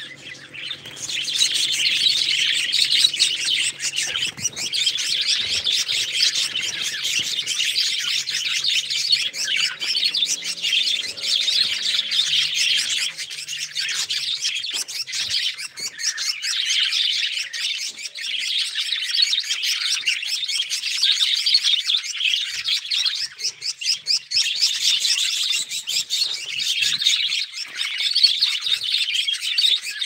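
A flock of budgerigars chattering continuously, a dense overlapping mix of quick high chirps.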